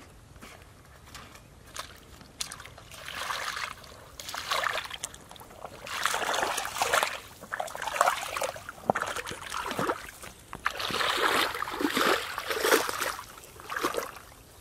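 Feet wading through shallow muddy water, sloshing and splashing in irregular bursts that start about two and a half seconds in.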